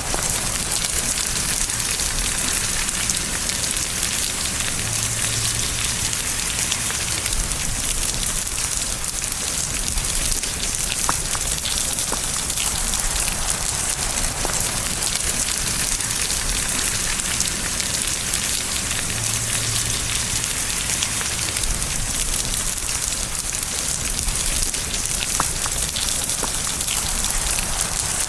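Steady rain falling, an even hiss with the odd sharper drop tick.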